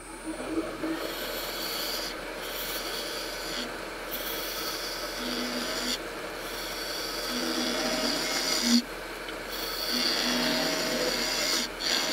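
Lathe gouge cutting a spinning cylinder of epoxy-soaked craft paper (paper micarta): a steady rough scraping hiss as long ribbons of shavings peel off, with a few short breaks when the tool eases off the cut.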